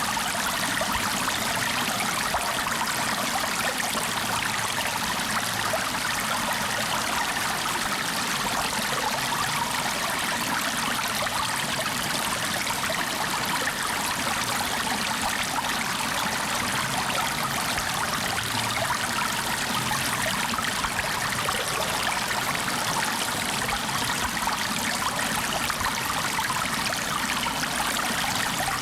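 Flowing water: a stream running over stones, giving an even, steady rush with a light trickle and no breaks.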